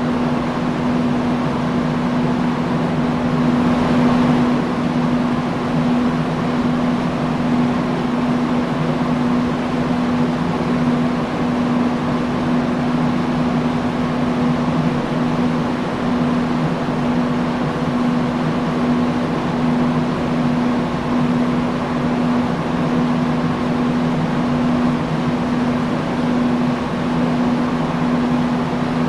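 Industrial fan running steadily: a constant rush of air over a steady low motor hum.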